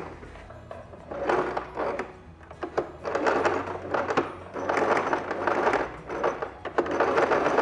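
Domestic sewing machine stitching in several short runs of one to two seconds each, stopping and starting between them as it topstitches folded bias-tape loops in place.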